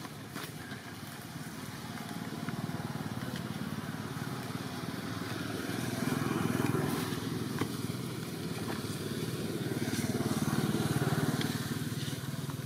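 An engine running steadily, growing louder twice, about halfway through and again near the end, with scattered light clicks and rustles.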